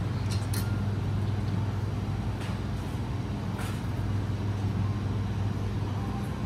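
Steady low hum of a commercial kitchen's ventilation hood fan, with a few light clicks and knocks from work at the counter.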